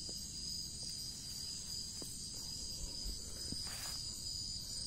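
Steady, high-pitched chorus of night insects. There is a short soft noise about three-quarters of the way through.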